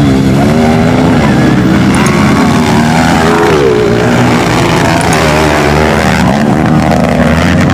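Several 155cc-class trail motorcycles racing on a dirt track, their engines revving hard, the pitch rising and falling as the riders work the throttle through the corner.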